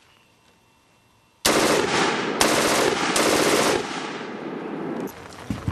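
MG-34 German belt-fed machine gun, chambered in 7.92×57mm Mauser, firing fully automatic from its bipod. It goes off about a second and a half in as one long burst of rapid shots, with two brief breaks.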